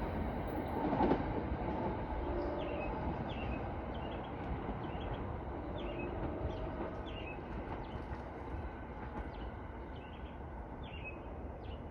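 New Jersey Transit passenger train pulling away from the station, its low rumble slowly fading as it recedes, with a single knock about a second in. Short high falling chirps repeat over the rumble.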